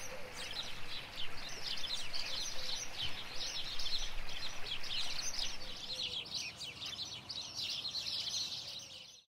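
Small birds chirping and singing in quick, overlapping high notes over the even rush of a shallow stream running around rocks. It fades out near the end.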